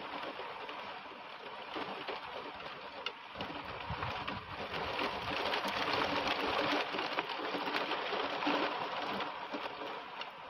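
Heavy storm rain pouring down through trees: a dense, steady hiss with the fine patter of drops, swelling louder in the middle and easing slightly near the end.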